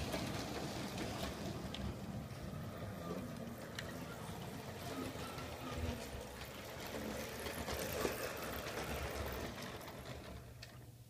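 G scale model trains running on their track: a steady electric-motor whir with wheels clicking over the rail joints, fading away near the end.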